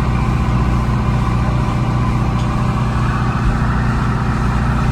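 An engine running steadily with a deep, even low drone.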